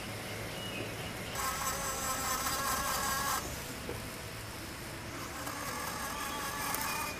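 Jeweller's rotary tool spinning a small disc against the links of a gold bracelet: a high whine in two runs of about two seconds each, the first louder.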